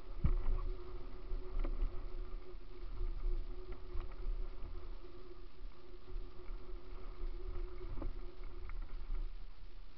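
Mountain bike descending a rough gravel trail: a steady low rumble of wind and vibration on the camera, with a steady hum under it and scattered knocks and rattles as the bike runs over stones, the sharpest just after the start.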